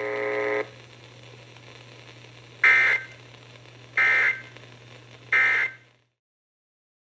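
Emergency Alert System end-of-message data bursts: three short, shrill digital bursts evenly spaced about 1.3 seconds apart, marking the end of the alert. Just after the start a steady tone cuts off, and a low hum runs under the bursts until the audio cuts to silence.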